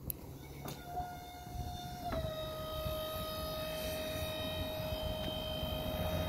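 Electric motor of a remote-operated power door whining steadily as the door lifts open. It follows a couple of clicks near the start, then drops slightly in pitch and gets louder about two seconds in.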